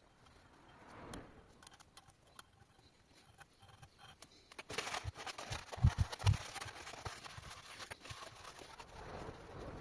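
Scattered clicks and light knocks of metal parts and tools being handled, turning about five seconds in to denser scraping and shuffling with a few heavy thumps.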